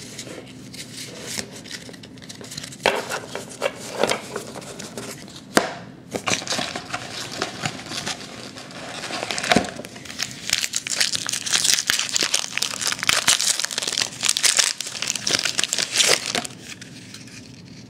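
Trading-card pack wrapper crinkling and being torn open by hand, in scattered rustles and crackles that grow busier about ten seconds in.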